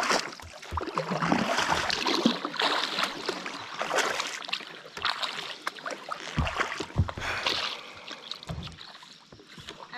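Kayak paddle strokes splashing in river water, in uneven surges about a second apart, with a few short low thumps.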